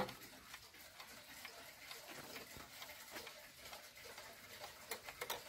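Pendulum wall clock with a Hermle movement ticking faintly and steadily, with a couple of sharper clicks near the end as the hands are turned by hand.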